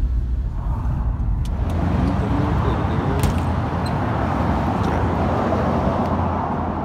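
Road noise inside a moving car, a deep steady rumble, which gives way after about a second and a half to street traffic: an even hiss of passing vehicles that swells and then eases near the end.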